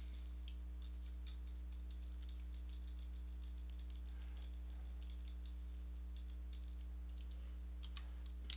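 Computer keyboard keys pressed repeatedly in light, irregular clicks while deleting lines in a text editor, over a steady low hum.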